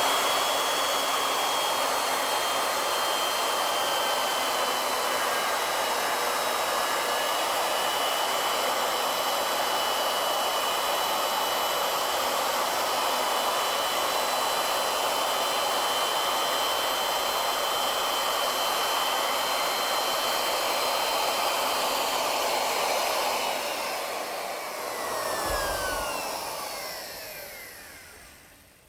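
Wood router spinning a 1/2 inch two-flute straight cutter on an ornamental mill, running steadily at full speed with a high whine over a loud rushing hiss. About 23 seconds in it is switched off and the whine slides down as the motor spins down, with a brief low thump near the end.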